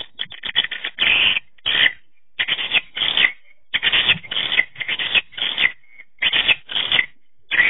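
Swiftlet lure sound: rapid twittering chirps of edible-nest swiftlets, played to draw swiftlets to a bird house. The chirps come in bursts of about half a second, repeating with short gaps.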